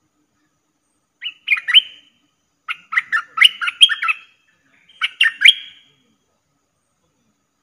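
Caged decoy bulbul singing three short bursts of quick, bright chirping notes about a second apart, the luring call used to draw wild bulbuls in.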